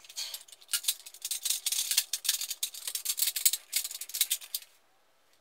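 Plastic parts of a dual flush valve kit rattling and clicking in the hands, a quick irregular clatter that stops shortly before the end.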